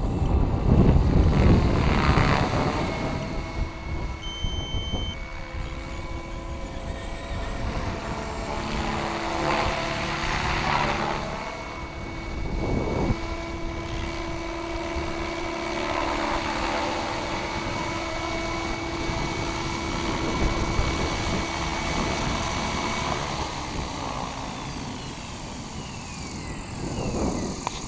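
SAB Goblin 500 electric RC helicopter in flight: a steady motor and gear whine with rotor swish that swells and fades several times as it passes and turns. It comes in low near the end.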